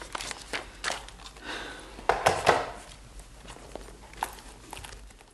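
Light handling sounds: a string of irregular soft clicks and knocks over faint room noise, loudest about two seconds in, ending abruptly.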